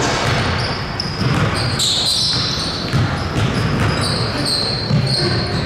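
Basketball game in a gym: a ball bouncing on the court, with many short high sneaker squeaks and the echo of the hall.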